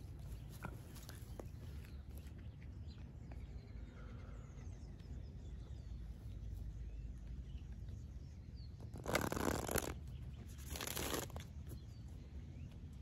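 Open-air park background: a steady low rumble with faint short chirps above it. About nine seconds in and again about a second later come two short bursts of rustling noise, the first a little longer and louder.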